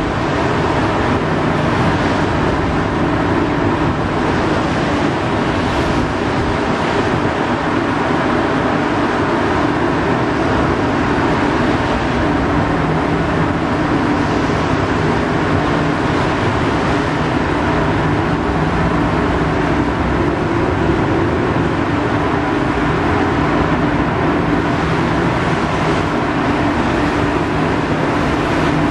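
Steady drone of a ship under way: an even low engine hum with a constant rushing noise over it.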